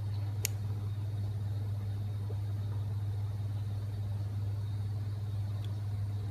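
Steady low hum of rooftop air-conditioning equipment running, with one light click about half a second in.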